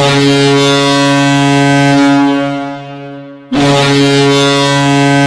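HC Kometa Brno's ice hockey goal horn, a deep steady blast signalling a goal. One long blast fades out a little after two seconds in, and a second long blast starts about three and a half seconds in.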